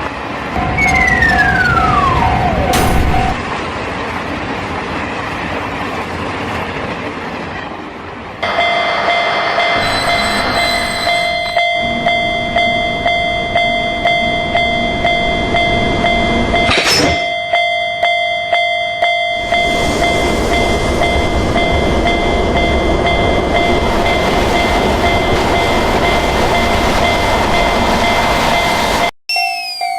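Railroad level-crossing warning alarm ringing a steady, regularly repeating ding over the rumble of a passing train, starting about eight seconds in. Before it, train noise with a tone that falls sharply in pitch.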